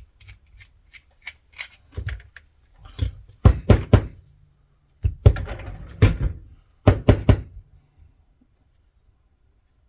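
Black Rhino padlock being handled and worked: light metallic clicks, then several heavier knocks and thunks in clusters, falling quiet in the last two seconds.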